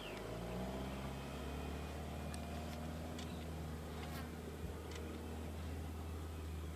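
A fly buzzing in a steady drone around a fresh buffalo carcass, with a brief drop in pitch as it comes in, plus a few faint ticks. A single sharp click right at the end.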